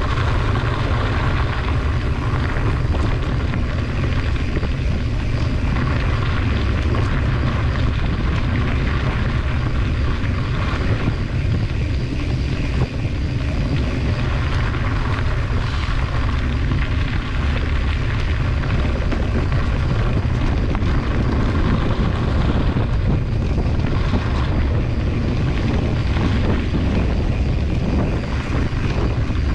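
Steady wind rumble on the microphone of a camera riding on a moving mountain bike, with the bike's tyres rolling over a dirt and gravel trail underneath.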